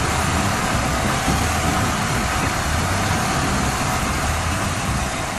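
Royal Enfield Himalayan's single-cylinder engine running while the bike is ridden, a steady low rumble under a constant rush of wind noise on the microphone.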